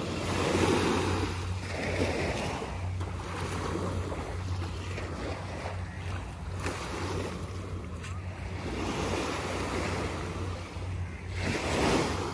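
Small sea waves washing up and draining back on a sandy shore, the surf swelling and fading every few seconds and loudest about a second in and near the end, with a steady low hum underneath.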